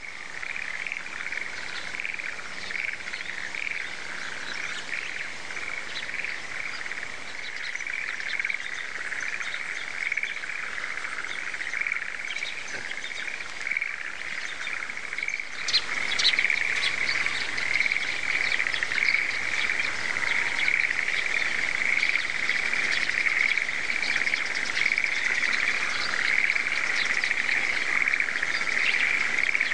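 A dense chorus of frogs calling from flooded rice paddies: a steady, pulsing din at one pitch, with birds chirping over it.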